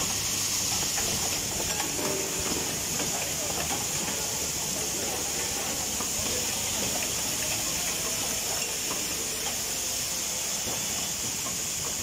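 Automatic pneumatic cabinet-hinge assembly machines running: a steady high hiss over a dense, continuous clatter of small clicks and ticks from the moving parts.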